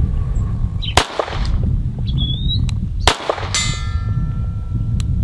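Two shots from an Atlas Gunworks Erebus 2011 pistol, about two seconds apart. About half a second after the second shot, a steel target plate is hit and rings out, fading over more than a second.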